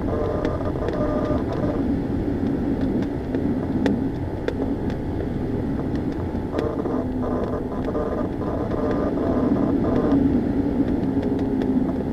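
Airflow rushing steadily around a Ka-8 glider in flight, with a low hum and scattered sharp clicks.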